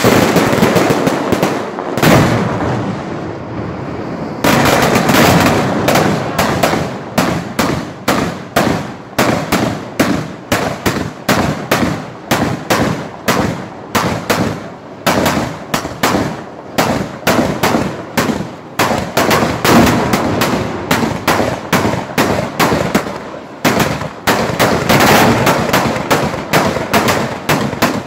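Antique Ligurian mortaletti, a row of small black-powder mortars set along the roadside, fired one after another with a long fuse pole. Loud blasts open it, then from about four seconds in comes a fast chain of sharp bangs, two or three a second, with a short break near the end.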